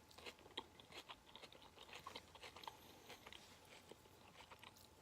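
Faint chewing of a Mexican grill bowl: soft wet mouth clicks and crunches, dense at first and thinning out in the last second or so.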